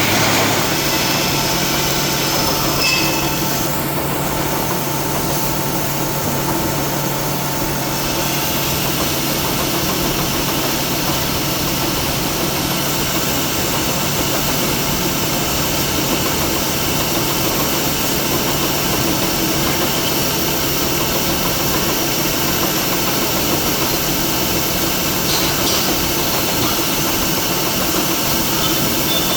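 Steady, loud running of industrial machinery, a continuous hum with several steady tones under a dense wash of noise; the higher-pitched part of the noise grows fuller about eight seconds in.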